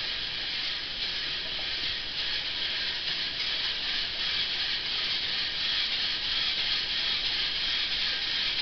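A steady high hiss that stays even throughout, with no distinct events.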